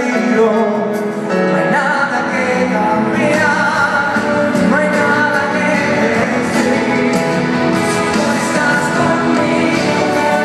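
Live pop ballad: a full band playing with singing over it, heard from the crowd in a large arena.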